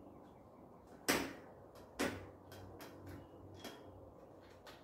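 Sharp metallic clicks and knocks from hand work on the bicycle's rear hub, cassette and derailleur. A loud knock comes about a second in and another about two seconds in, with lighter irregular ticks between and after.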